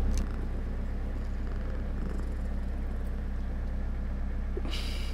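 Domestic cat purring close by: a steady low rumble with a fine, even pulse. A brief breathy hiss near the end.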